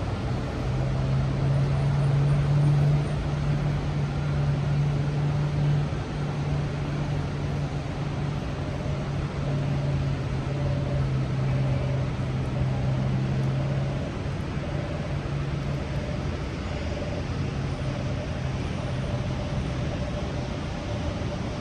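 Heavy rain falling steadily, with a low, steady engine hum over it that weakens about fourteen seconds in.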